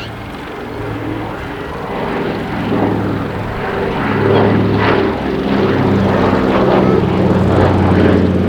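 The two radial piston engines and propellers of a Consolidated PBY Catalina flying boat running in flight, a steady engine hum that grows louder about halfway through as the aircraft comes closer.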